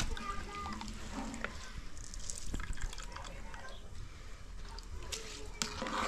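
Water dripping and splashing as a metal ladle scoops soaked rice out of a bowl of water and tips it into a pot of tomato broth.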